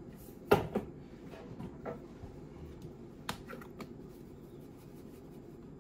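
Black pepper being added to a stainless steel bowl: a few sharp clicks, the loudest about half a second in, with fainter ticks near two and three and a half seconds in.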